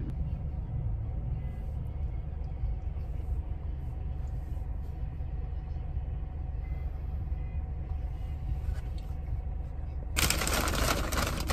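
Car idling, heard from inside the cabin as a steady low rumble. Near the end a sudden loud rustling noise starts.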